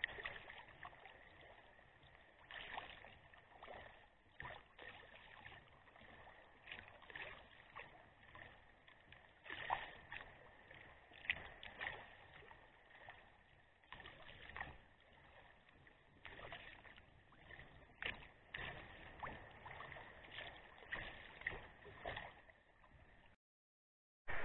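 Kayak paddle blades dipping and splashing into the water with each stroke, in irregular bursts about every second or two over a low hiss of moving water.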